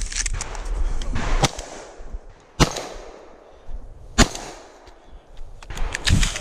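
Two shotgun shots about a second and a half apart, each a sharp crack. Footsteps crunch on dry leaves and twigs at the start and again near the end.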